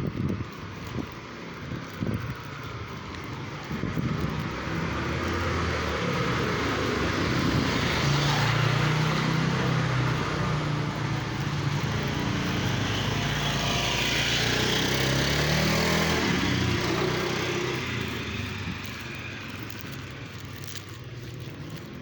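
Motor vehicle engine that grows louder over several seconds, stays loud for about eight seconds, then fades away.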